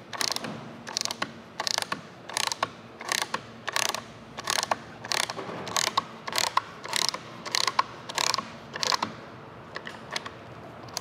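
Hand-operated nutsert (rivet nut) tool clicking as it is worked to set a nutsert in the sheet-metal A-pillar: short clicks in quick clusters about one and a half times a second, thinning out after about nine seconds.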